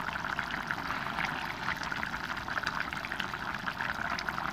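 Chicken and bottle gourd curry boiling in an open pot, a steady bubbling with many small pops, as the gravy is cooked down.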